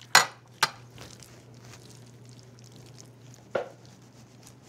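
Dry lasagna noodles snapped by hand: three sharp cracks, two close together near the start and one about three seconds later, over a faint steady low hum.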